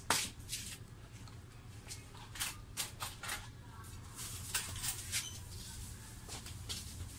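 Scattered light clicks and scrapes of hands handling a gauge circuit board and a soldering iron on a workbench, over a steady low hum.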